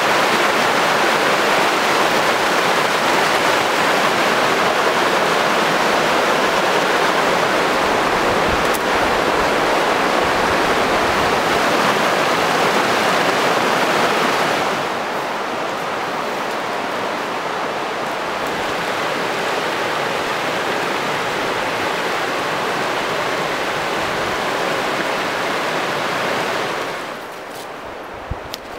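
River rapids rushing over rocks: a loud, steady wash of whitewater. It drops a little about halfway through and falls away further near the end, where a few light, sharp clicks come through.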